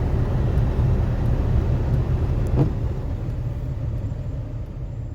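Car driving, heard from inside the cabin: a steady low road and engine rumble, with a single knock about two and a half seconds in. The rumble fades off toward the end.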